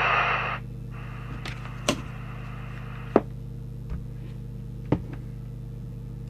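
Cobra UK29LTD ST CB radio's speaker hiss, cutting off abruptly about half a second in, leaving a steady low hum with fainter hiss and a few sharp clicks, the loudest about three seconds in. The set is on frequency but receiving no signal.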